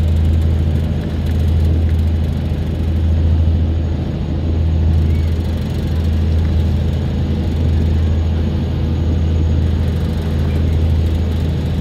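Engine of the KMP Sumut 1 passenger ferry running steadily, a loud low drone that swells and eases gently every second or two.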